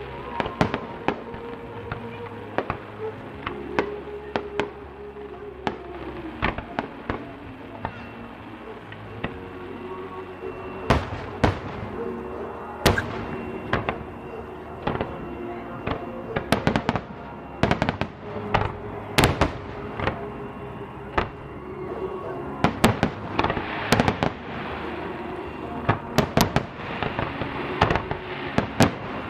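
Fireworks display: a string of sharp, irregular bangs from bursting fireworks, growing thicker and faster in the second half, with music playing underneath.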